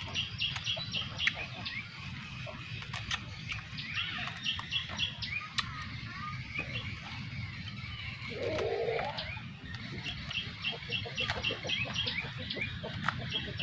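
A small bird calling in quick runs of short, high chirps, a few times over, with sharp little clicks and snaps as the scaly skin of a salak (snake fruit) is picked open by hand.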